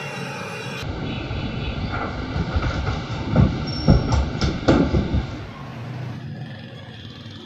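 Knocks and clatter of a carved wooden panel being handled, over a rumbling, rattling workshop noise, with a few sharp knocks bunched near the middle.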